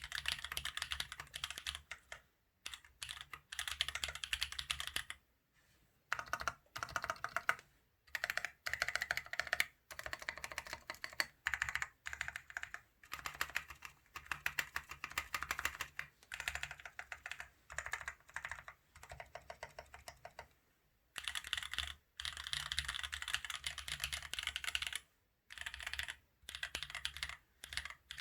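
Mechanical keyboard with Holy Panda tactile switches on a carbon fiber plate in an aluminium case, typed on fast in bursts of rapid key clacks broken by several short pauses.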